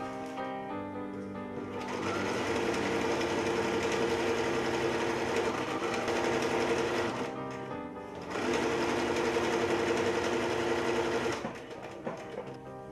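Domestic electric sewing machine stitching through fabric in two runs: one of about five seconds starting about two seconds in, then, after a pause of about a second, another of about three seconds.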